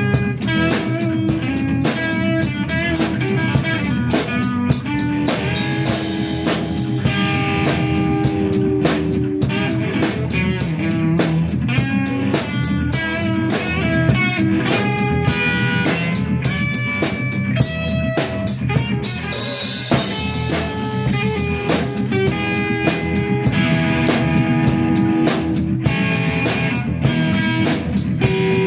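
Instrumental rock band playing: a lead guitar melody over rhythm guitar, bass guitar and a drum kit keeping a steady beat.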